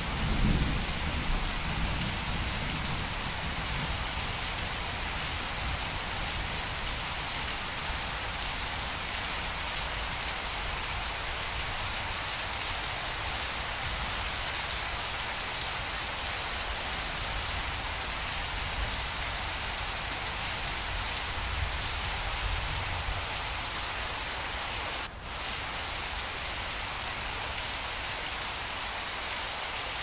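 Steady rain falling on leaves and other surfaces, an even hiss of drops. A low rumble dies away in the first second, and the sound dips for a moment about 25 seconds in.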